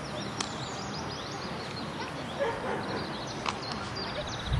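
A dog barking, with small birds chirping high over a steady background noise.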